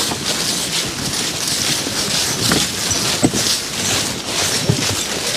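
Dry fallen leaves rustling and crunching under footsteps, the draft horses' forecart wheels and the wheeled canoes being towed along, with a few light knocks.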